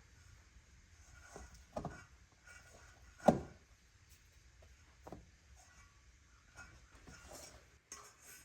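Dishes and kitchen utensils being handled: scattered light knocks and clinks, with one louder knock about three seconds in.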